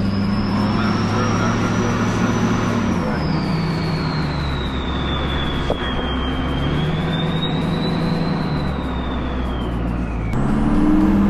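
2005 Duramax LLY 6.6 L V8 turbo diesel, fitted with a 64 mm turbo and a 4-inch exhaust, pulling down the road with its high-pitched turbo whistle rising and falling as the engine note changes. Near the end the engine note climbs again and a new, higher whistle starts to rise. The truck itself is quiet; the turbo whistles.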